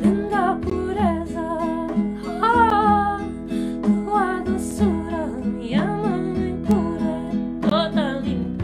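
A woman singing a slow melody over a strummed nylon-string acoustic guitar, with a hand drum keeping the beat.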